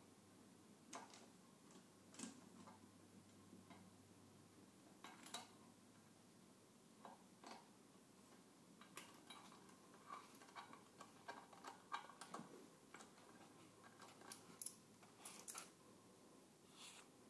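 Small metal parts being handled by hand as a gasket and oil return fitting go onto a turbocharger's oil drain flange: faint, irregular light clicks and taps, coming thicker in the second half.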